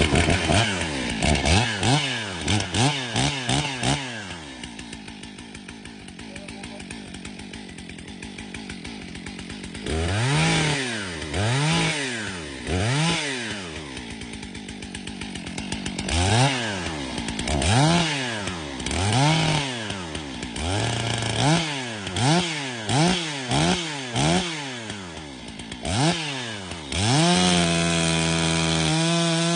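Warmed-up Stihl MS661 two-stroke chainsaw revved in a series of quick throttle blips, each rising and falling in pitch, with short spells at idle between. Near the end it is held at a steady high rev.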